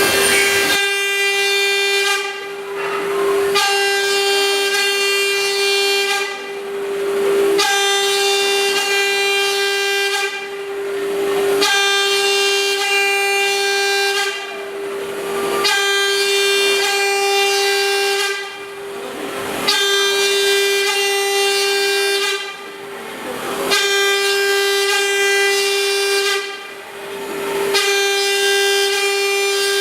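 InfoTEC 3121 PRO CNC machining centre milling: a steady spindle whine, with the cutter making a ringing, many-toned cutting whine in repeated passes about every four seconds that falls away briefly between passes.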